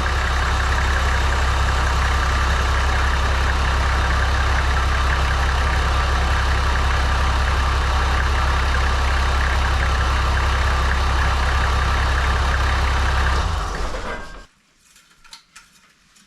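Toyota Land Cruiser 100 Series engine idling steadily, run briefly after an oil change to circulate the fresh oil before the level is checked. It is switched off about 13.5 seconds in and dies away within a second, leaving a few faint ticks.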